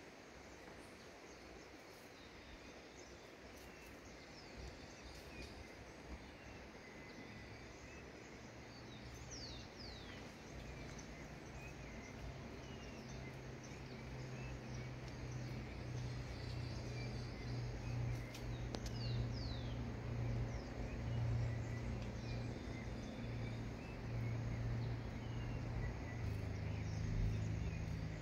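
Outdoor ambience with scattered short, downward-sweeping bird chirps. A low steady hum fades in about ten seconds in and grows to be the loudest sound.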